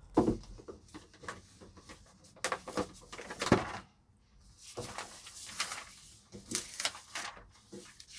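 Newspaper sheets rustling and crackling as they are unfolded and spread flat over a table, in irregular bursts with a brief pause about halfway.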